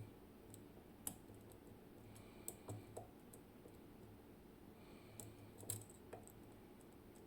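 Faint, irregular metallic clicks and taps of a lock pick working the pins inside a zIKON RW6 dimple lock under tension, a handful of sharp clicks spread unevenly.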